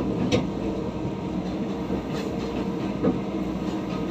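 Diesel multiple unit running along the track, heard from on board: a steady low rumble with a few sharp clicks, one just after the start and one about three seconds in.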